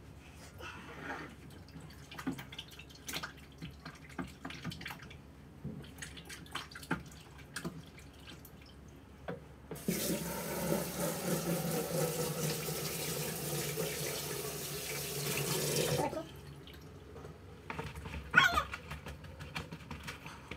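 Kitchen tap turned on and running into the sink for about six seconds, then shut off abruptly, with light clicks and knocks of handling before and after.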